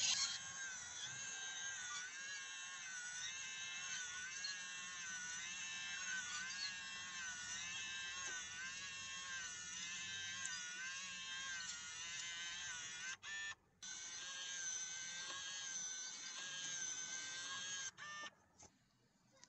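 SwitchBot Blind Tilt motor running as it turns the blind's tilt wand: a high whine that wavers slightly in pitch. It cuts out briefly about two-thirds of the way through, runs again, then stops shortly before the end.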